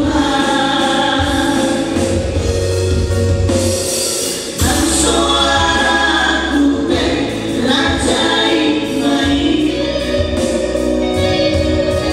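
Male vocal trio singing a gospel song in close harmony through microphones, over an instrumental backing with steady bass notes.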